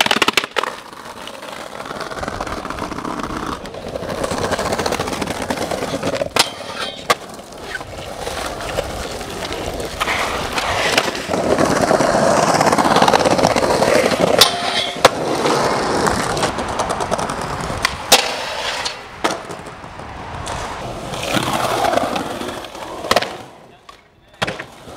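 Skateboard wheels rolling over concrete and paving, with sharp clacks scattered through as the board pops and lands on tricks.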